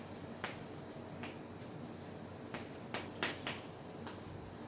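Chalk striking and scraping on a blackboard as digits and multiplication signs are written: a string of short, sharp taps at an uneven pace.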